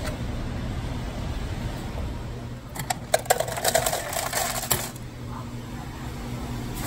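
Steady low hum of a vehicle's engine running, with a quick cluster of clicks and rattles about three to five seconds in.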